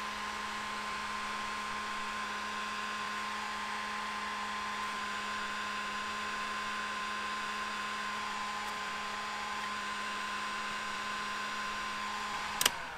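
Electric heat gun running steadily, a hum over a rush of blown air, heating adhesive-lined heat-shrink tubing over a wire splice. Near the end it is switched off with a click and its fan starts to wind down.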